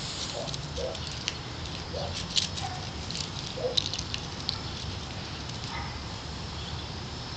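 Kittens playing and pouncing in an exercise pen: light scuffling and patter with a few sharp taps.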